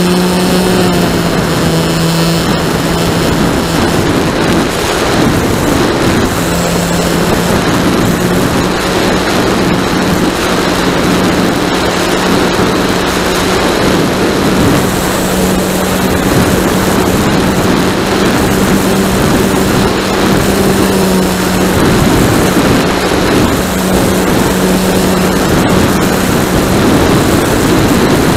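Model Piper Cub's motor and propeller running steadily in flight, heard from a camera on the plane, with a steady hum whose pitch shifts slightly as the throttle changes. Heavy wind rush over the microphone runs underneath it.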